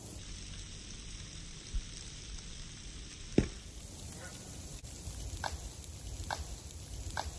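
A thrown disc golf disc striking something hard with a single sharp knock about halfway through, after a softer low thump a couple of seconds earlier. Geese honk three short times near the end.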